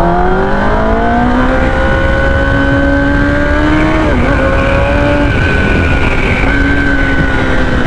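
Kawasaki ZX-10R inline-four sportbike engine under hard acceleration, heard from on board, its pitch climbing as it pulls through the gears. A gear change drops the pitch about four seconds in, and then it holds fairly steady at cruising speed, with wind rush underneath.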